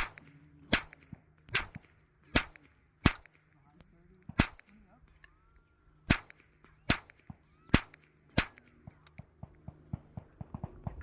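Silenced MP5 firing single shots at a steady pace, about one every three-quarters of a second: ten sharp cracks in all, with a brief pause after the sixth. A run of lighter, quicker clicks follows near the end.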